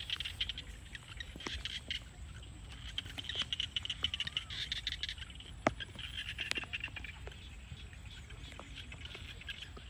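A dense chorus of frogs calling, a steady pulsing trill, with a few sharp clicks and rustles of bare feet stepping through wet grass.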